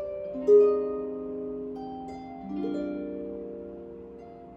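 Solo harp playing slowly: plucked notes and chords that ring on and fade. The loudest chord comes about half a second in, and another is plucked about halfway through.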